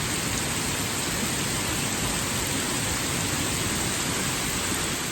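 Heavy rain falling: a steady, even hiss of water.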